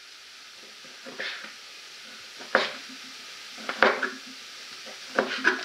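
A knife striking a wooden cutting board about five times in separate cuts, chopping smoked bacon into strips, over a steady sizzle of onions frying in a pan.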